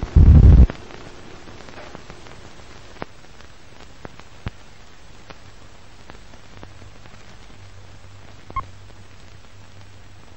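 Old film leader soundtrack: a loud low burst at the start, then steady hiss with scattered crackles and pops while the countdown runs. A short high beep about 8.6 s in, on the '2' of the countdown, is the sync pop.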